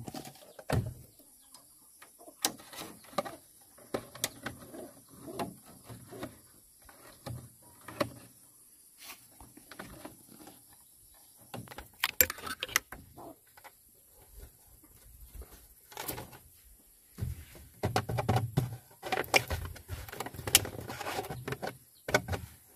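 Hands handling a woven split-bamboo coop and a plastic bottle: irregular clicks, taps and rustles of bamboo strips and plastic, with louder spells about halfway through and in the last few seconds.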